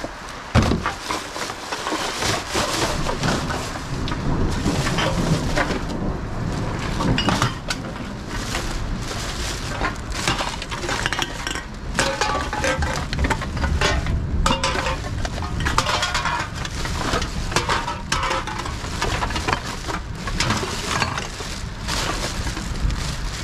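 Empty aluminium drink cans clattering and clinking as they are tipped and sorted out of a plastic bag into a bin heaped with cans, the bag rustling as it is handled.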